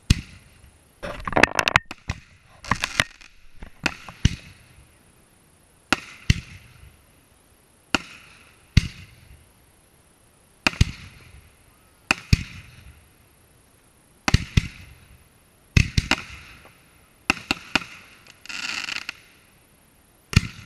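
Aerial firework shells going off: a string of sharp bangs, often in close pairs, every second or two, each with a short echo. Near the end comes a hissing crackle that lasts about a second.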